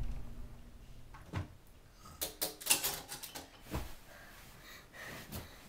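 Several light knocks and clicks in a small room, one about a second and a half in, a quick cluster a little after two seconds, and a couple more singly later.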